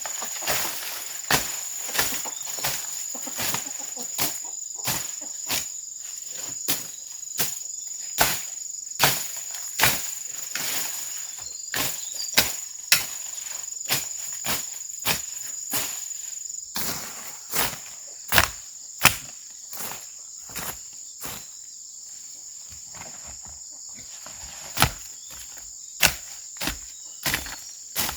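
Sharp strikes of a hand tool, roughly one a second, over a steady high insect drone. The strikes pause for a few seconds after about twenty seconds, then start again.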